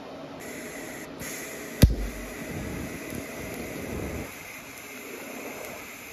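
DC TIG welding arc from an Everlast Hurricane 220 MTS-C on stainless steel. A high-pitched hiss starts about half a second in, a single sharp crack comes near two seconds in as the arc strikes, and the arc then runs with a steady hiss.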